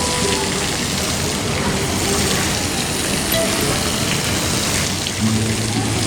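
Steady rushing, hissing noise of water, with faint music under it; a plucked guitar tune comes in clearly near the end.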